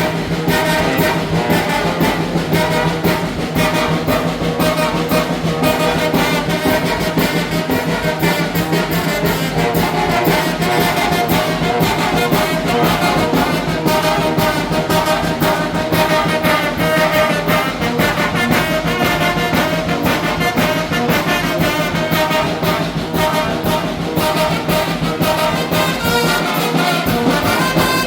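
Mexican brass band (banda) playing a huapango: trumpets and trombones carrying the tune over percussion that keeps a steady beat.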